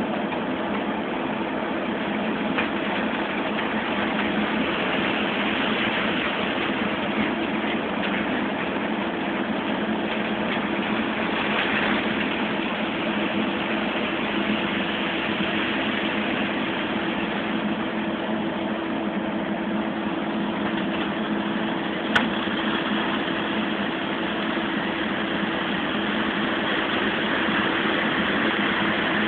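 Semi-truck's engine running steadily while its tipper trailer is raised to dump crushed stone. A single sharp click comes about three-quarters of the way through.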